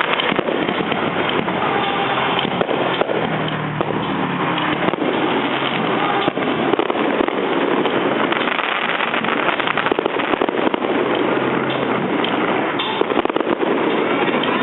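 Fireworks going off in a dense, continuous barrage: rapid overlapping bangs and crackles with no break.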